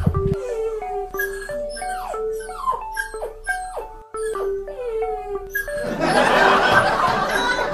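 Background music with a plinking, mallet-like melody, over which a puppy gives a run of short, high, falling yelps. About six seconds in, a louder, rougher noisy sound takes over.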